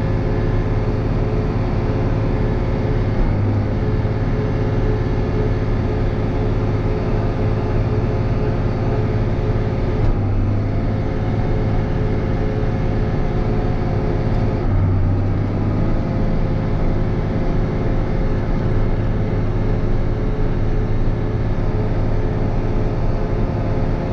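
John Deere 7200 tractor's six-cylinder diesel engine running steadily under load while driving a manure spreader, heard from inside the tractor cab. The engine note shifts slightly a couple of times.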